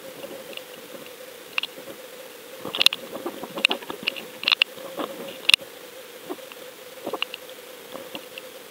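Underwater camera audio from a deep-drop rig: a steady hum with hiss, broken by scattered sharp clicks and knocks, most of them in a cluster around the middle.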